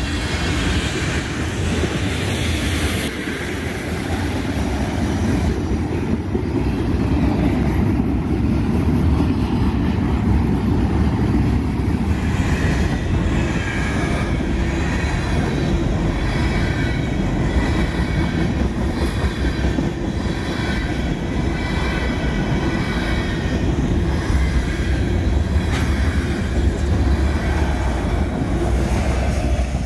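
Canadian National freight train rolling past a road crossing: a steady rumble and clatter of steel wheels on the rails, with high ringing tones coming and going above it.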